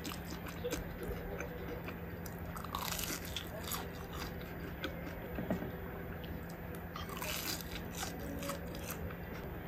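Close-up biting and chewing of crispy batter-fried eggplant, in bursts of crunching about three seconds in and again around seven seconds in. A low steady hum runs underneath.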